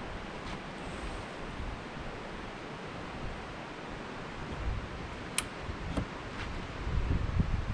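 Wind rushing over the microphone, with low buffeting gusts that grow stronger near the end. A few sharp light clicks come about five to six and a half seconds in.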